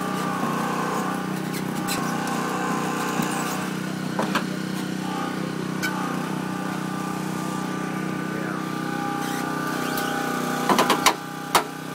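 An engine running steadily at idle, with a few sharp clicks and a quick cluster of metallic knocks near the end.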